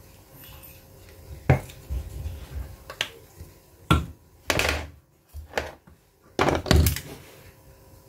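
Kitchen utensils knocking and scraping against dishes: about half a dozen sharp knocks spread out, with two longer scraping noises about halfway and near the end.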